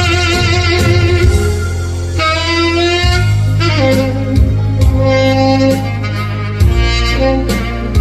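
Saxophone playing a slow trot melody in long held notes with vibrato, sliding down to a lower note about halfway through, over a backing track with a steady bass line and drum beats.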